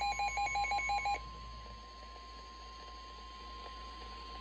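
Weather-alert warning tone: a steady single-pitch alarm tone preceding a National Weather Service severe thunderstorm warning message. Rapid electronic beeping plays over it and stops about a second in.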